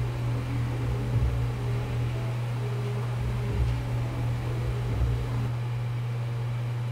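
Steady low mechanical hum, with a few faint bumps.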